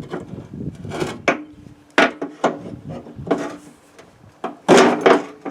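Metal knocks and clanks, about six sharp strikes with a short ringing after each, with scraping in between, as a pin in a Craftsman riding mower's deck linkage is worked free.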